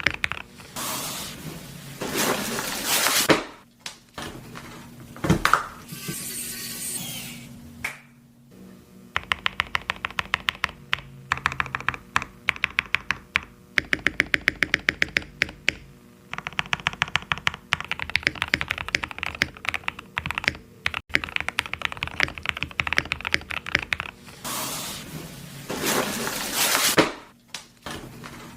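Typing on a mechanical keyboard fitted with KTT Strawberry linear switches: long runs of quick, even keystroke clicks, with denser noisy stretches of keys near the start and again near the end.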